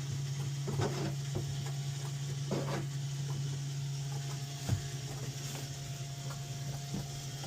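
Small electric bilge pump running with a steady low hum, with a few light knocks and clicks of things being handled, the sharpest about four and a half seconds in.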